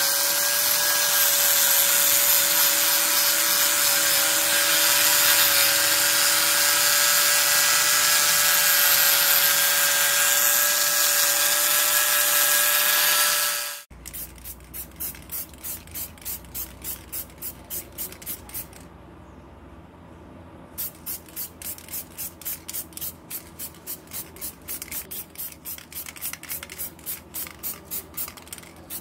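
A power tool runs steadily at an even pitch for about fourteen seconds and then cuts off. It is followed by rhythmic back-and-forth hand strokes of rubbing or scraping, about two to three a second, with a short break partway through.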